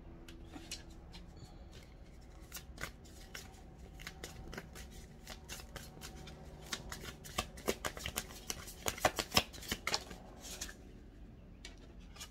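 A deck of tarot cards being shuffled by hand: a run of quick card flicks and slaps that grows denser and louder about two-thirds of the way through, then stops shortly before the end.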